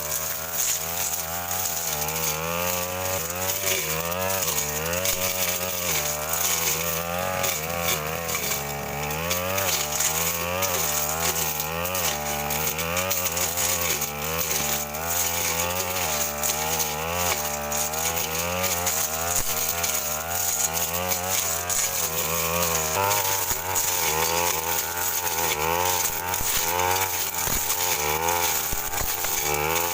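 Stihl FR 3001 backpack brush cutter's two-stroke engine running hard and continuously, its pitch rising and falling again and again as the blade bites into and clears thick brush.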